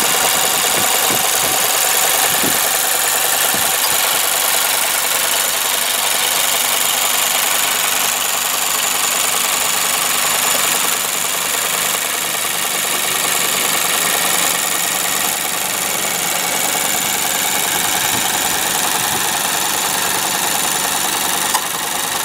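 The 1.5 L SKYACTIV-G inline-four of a Mazda Roadster (MX-5, ND) idling steadily, heard close up from the open engine bay.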